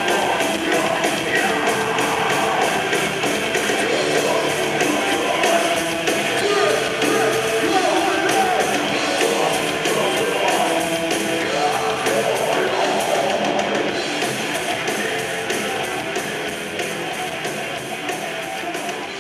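Metalcore song: distorted electric guitars and pounding drums with vocals, getting gradually quieter over the last few seconds.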